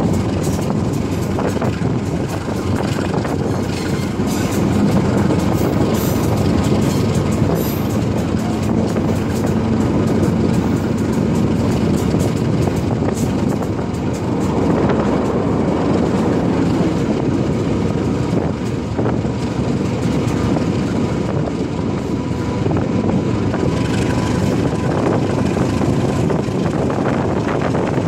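Local passenger train running along the line, heard from inside the coach: a steady rumble of wheels on rail with light rattles and clicks.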